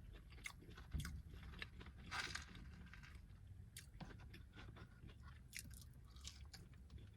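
Faint close-up sounds of a person chewing and crunching fried food, with small wet mouth clicks throughout and one short crunch about two seconds in.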